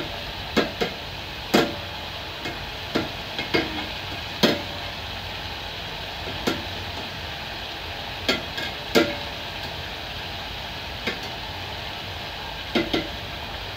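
Mandazi dough deep-frying in hot oil with a steady sizzle, while a wire-mesh skimmer clinks and scrapes against the metal pot at irregular moments as the pieces are turned.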